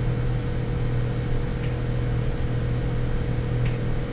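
Steady low hum and hiss of the recording's background noise, with two faint clicks about two and four seconds in.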